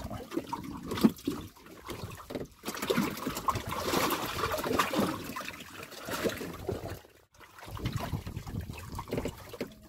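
Seawater sloshing and trickling against a small wooden boat, with scattered ticks and a sharp knock about a second in.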